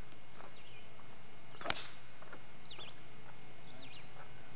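A golf club strikes the ball off the tee with one sharp crack about two seconds in. Birds chirp a few times afterwards over a steady hiss.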